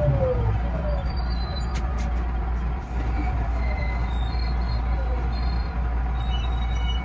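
JR West 207 series GTO-VVVF electric train running, heard from the driver's cab: a steady low rumble of wheels on rail, with faint falling whines from the traction inverter and motors.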